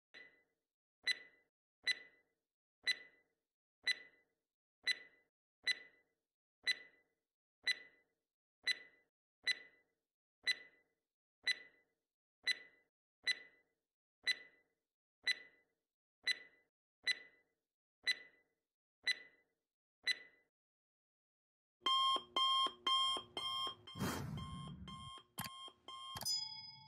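Countdown timer sound effect: sharp clock-like ticks about once a second for some twenty seconds, then an alarm-clock ring for about four seconds as time runs out. A short ding follows near the end as the correct answer is marked.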